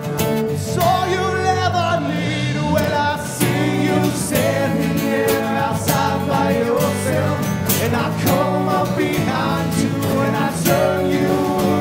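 Live acoustic band playing a song: strummed acoustic guitars and electric bass under sung vocals.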